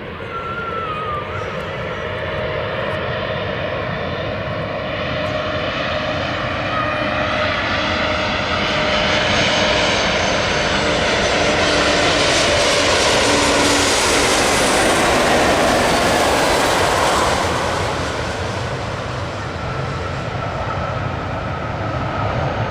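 Embraer ERJ-195LR jet airliner's twin turbofan engines on landing. The roar builds to a peak in the middle with a high whine falling in pitch as it passes, then eases off a few seconds before the end.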